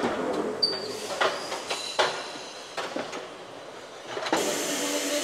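Scattered sharp knocks and clicks from tyre-changing work, several over a few seconds, with a brief high squeak about half a second in. Background music comes in about four seconds in.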